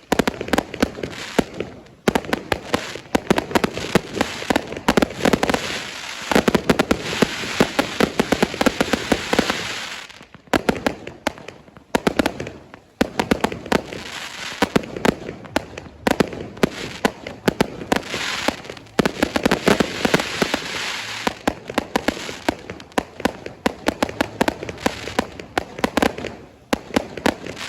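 Fireworks going off in dense, rapid volleys of sharp cracks and bangs, with a few brief lulls between bursts.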